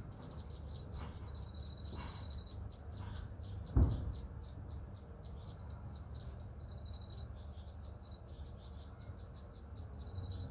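Insects trilling high and steady, then in fast even pulses, over a low outdoor rumble. A single thump comes about four seconds in.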